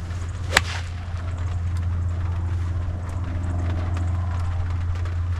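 Golf 9-iron striking the ball, a single sharp crack about half a second in, over a steady low hum.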